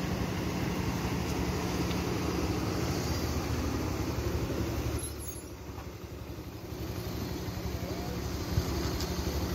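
Motor vehicle engine running steadily at low speed, a low hum that drops in level for a second or two around the middle.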